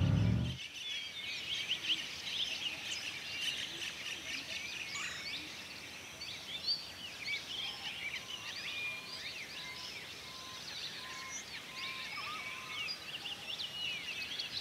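A chorus of many birds chirping and singing at once, a dense overlapping chatter of short high notes, with a run of short, evenly spaced lower notes in the middle. A car's low road rumble cuts off about half a second in.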